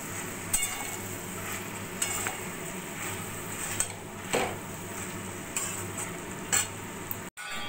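Metal spatula stirring and scraping a thick mix of bottle gourd greens and vegetables around a kadai, with about seven sharp, irregular scrapes and knocks against the pan over a steady low background noise.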